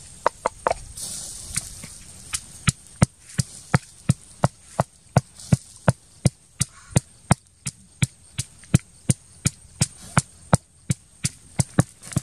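Pestle pounding chili and salt in a mortar: steady, sharp knocks at about three a second, after a few lighter taps at the start.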